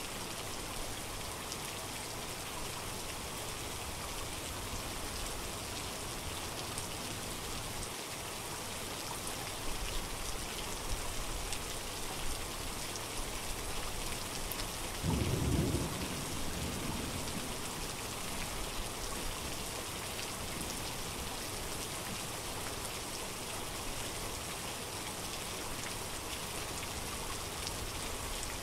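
Steady rain falling, with low thunder rumbling a few times about a third of the way in and one louder roll of thunder a little past halfway.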